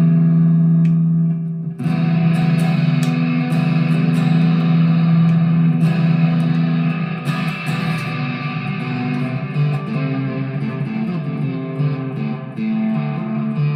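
Harley Benton TE-90 FLT electric guitar being played through an amplifier: a chord rings out for about two seconds, then a run of changing notes and chords.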